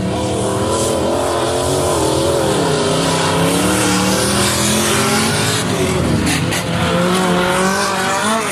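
Several stock car engines running and revving at once as cars race past, their pitches rising and falling over one another.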